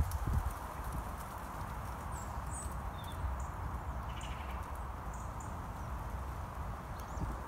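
Rural outdoor ambience: a steady low rumble with a few faint, high bird chirps scattered through, and a couple of low thumps right at the start.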